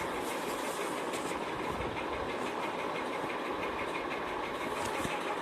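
Steady machine hum with a fast even pulsing of about five or six beats a second, like a small motor or fan running, with a few faint brief rustles.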